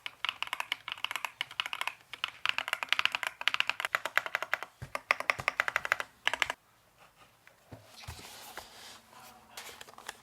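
Fast typing on the AKKO ACR Top40 40% mechanical keyboard, a dense run of key clacks that stops about six and a half seconds in. After it come a soft knock and faint rustling.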